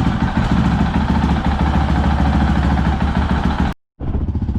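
Honda CRF450L single-cylinder four-stroke engine idling while warming up, with a fast, even pulse; the owner thinks it sounds a little funny and is due an oil change. The sound breaks off briefly near the end, then the idle resumes.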